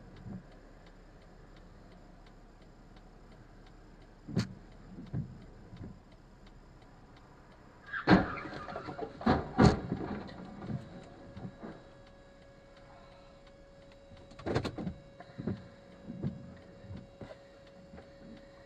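Car collision: a cluster of heavy thuds and knocks about eight to ten seconds in, with smaller knocks before and after. After the impacts a faint steady tone holds.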